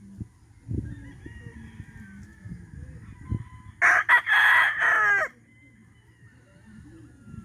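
Cowan Roundhead gamecock crowing once, near the middle: a short opening burst, then one long call about a second and a half long that slides down in pitch at its end.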